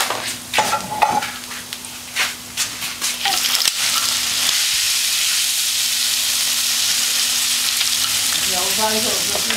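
Rice and mussels frying in oil in a large steel paella pan, sizzling while a wooden spoon stirs and scrapes them. For the first few seconds the sizzle is broken by separate spoon strokes; after that it settles into a steady, loud hiss as the rice toasts.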